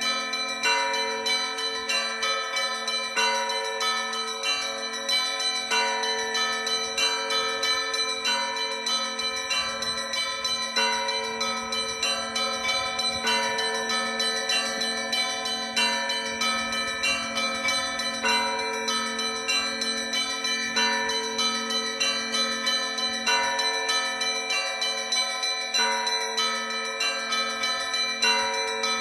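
Orthodox church bells rung together in a continuous festive peal for Christmas: small bells struck in a quick, busy pattern over the regular strokes of larger, deeper bells, with no pause.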